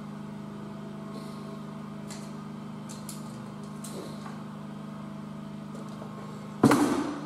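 A hand caulking gun laying a bead of adhesive, its trigger and plunger giving faint clicks over a steady low hum. Near the end comes one loud, sharp knock, the loudest sound, as the gun or the oak board is set down.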